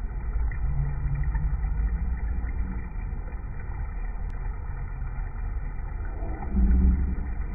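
Water churning with a dense stream of air bubbles in an Evo-Spa dog-grooming tub whose ozone bubble-massage system is running: a steady, low rumbling bubbling that swells louder near the end.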